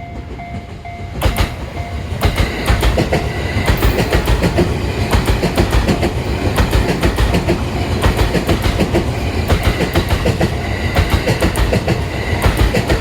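JR East E657 series electric limited-express train passing over a level crossing, its wheels clacking in a fast, even rhythm with a heavy rumble underneath. A level-crossing warning bell rings in pulses at the start and is lost under the train about a second in.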